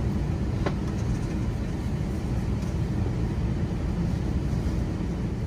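Steady low rumble of airliner cabin noise from the engines and airflow, with a faint click about two-thirds of a second in.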